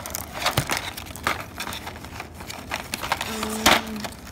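Clear plastic blister packaging crinkling, with irregular sharp clicks and crackles as it is handled and pulled apart. A brief low steady tone comes about three and a half seconds in.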